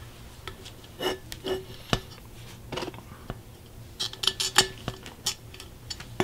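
Clinks and knocks of hard parts being handled while rubber bushings and grommets are fitted back into a powder-coated aluminium intercooler pipe: a few about a second in, then a quick cluster around four to five seconds in.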